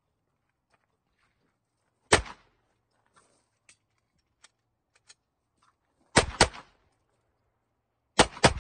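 Semi-automatic pistol firing: a single shot about two seconds in, then two quick pairs of shots, each pair about a quarter second apart, about six and eight seconds in. Faint small clicks fall between the shots.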